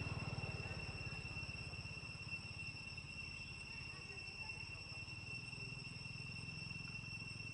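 A steady, high-pitched insect trill from the surrounding forest, unbroken throughout, with a low steady hum beneath it.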